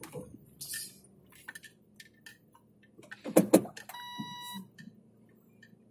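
A brief loud knock and rustle a little over three seconds in, followed at once by a single electronic beep, a steady high tone lasting under a second, inside a car.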